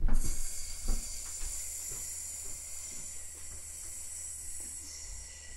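A woman hissing out one long breath through her mouth like a snake, the exhale of a 'snake breath' calming exercise; the hiss starts strong and slowly fades before stopping near the end.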